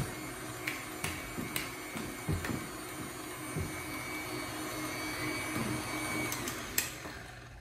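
Electric tilt-head stand mixer running steadily, beating box-cake batter with its wire whisk in a steel bowl, with light clicks of the whisk against the bowl. Its steady whine drops away about six seconds in, as the mixer winds down, followed by a click.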